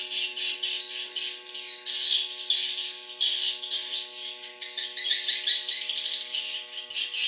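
Swiftlet calls: dense, rapid chirping twitters, overlapping without a break, with a faint steady hum underneath.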